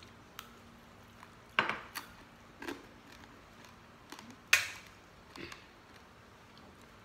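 Eating noises at a dinner table: several short, sharp clicks and clinks of plates and dishes, the loudest about four and a half seconds in.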